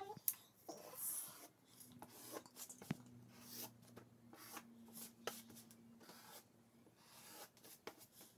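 Sharpie felt-tip marker drawing on paper: a series of short scratchy strokes as the petals are outlined.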